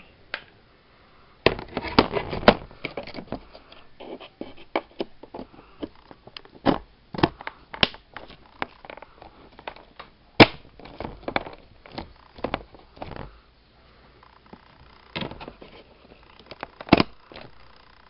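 A RAM stick being handled and pushed into a motherboard's memory slot: a run of irregular plastic clicks and taps, the sharpest about ten seconds in and again near the end.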